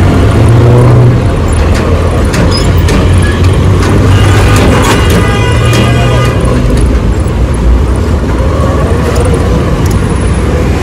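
Motorcycle running in highway traffic, a steady engine and road rumble. A high sound with several tones sounds for a couple of seconds around the middle.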